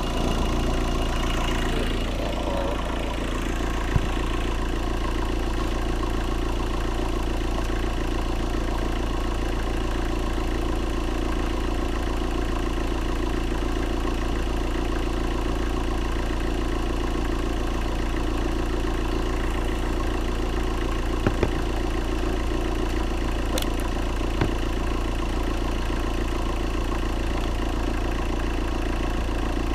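Vauxhall Astra 1.7 CDTI four-cylinder turbodiesel engine idling steadily, with a few light clicks.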